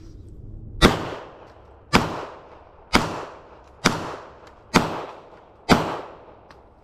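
Six shots from a .45 ACP 1911 pistol, fired at a steady pace of about one a second, each followed by a short fading echo.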